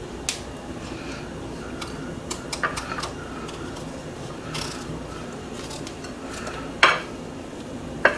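Cutlery clinking and tapping on a plate: a scatter of light taps, with two sharper, louder clinks near the end.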